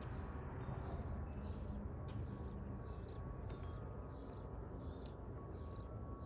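A songbird outdoors repeating a short high chirp, about one and a half notes a second, over a steady low background rumble.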